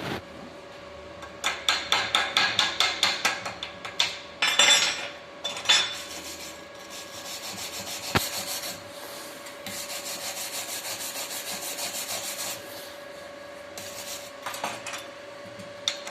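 Steel wire brush scrubbing slag off a weld bead in fast back-and-forth strokes, about five a second, cleaning the bead before the next pass so that no slag is left to cause weld defects. The strokes are loudest in the first half and softer and steadier later.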